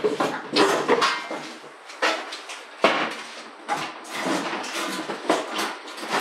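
Irregular clatter, knocks and rustling of school things being handled and packed into a backpack at a desk.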